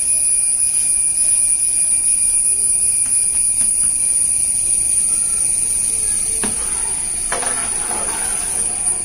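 A steady high-pitched whine throughout. About six and a half seconds in there is a single click, then a short rattle as tutti frutti (candied fruit) is scattered from a plate onto the rice.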